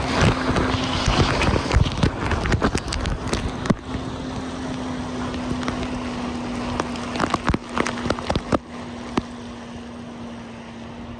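Jet ski engine running steadily at speed, heard from the towed tube behind it over rushing wake water and wind. Spray spatters onto the microphone in bursts of sharp splashes, most heavily in the first few seconds and again until about eight and a half seconds in.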